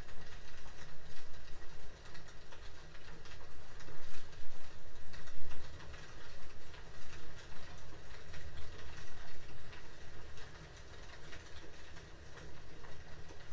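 Heavy rain pattering steadily: a dense, irregular patter of drops.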